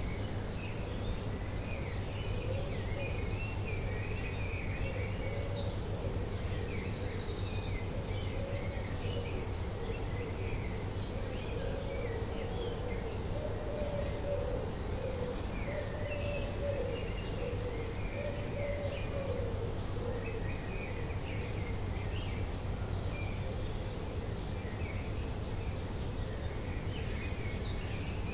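Dawn chorus: several birds singing and calling at once, with overlapping high chirps and short trills throughout. A lower, wavering call runs through much of the middle, over a steady low hum.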